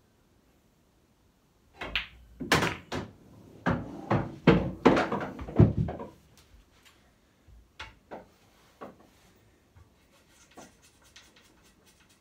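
A pool shot on an English pool table: the cue strikes the cue ball about two seconds in, then balls click together and knock against the cushions in a run of sharp knocks lasting about four seconds. A few fainter clicks follow.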